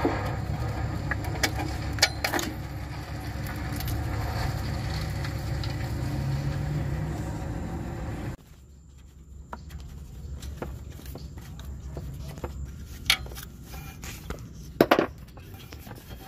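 Scattered metallic clicks and clinks from hand work on the alternator's power-wire terminal nut. Under them runs a steady low rumble that cuts off abruptly about eight seconds in. A few sharper clinks come near the end.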